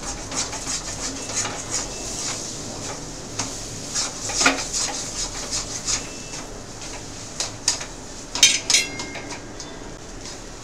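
Metal spatula scraping and knocking against a steel kadhai while chopped bitter gourd is stir-fried over a steady sizzle. There is a sharp knock about four and a half seconds in, and a louder clang with a brief metallic ring about eight and a half seconds in.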